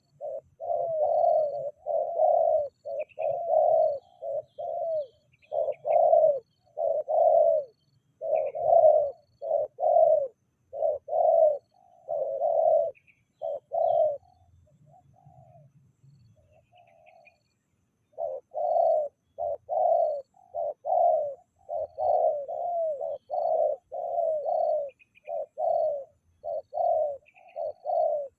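Spotted dove cooing, a long series of low coos in quick succession with a pause of about four seconds midway. Faint short high chirps come in now and then.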